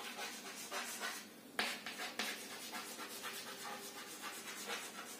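Chalk writing on a chalkboard: faint, short scratchy strokes, with a sharper tap about a second and a half in.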